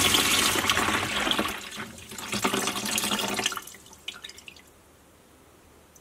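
Water gushing from a NEFF dishwasher's drain hose into a plastic bucket in two surges, then tailing off into a few drips and stopping about four and a half seconds in. The drain pump is pushing the water out now that the blocked T-piece has been removed.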